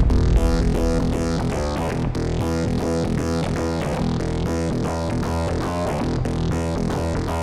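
Background music: a synthesizer or electric keyboard playing quick, evenly repeated notes over a steady low bass.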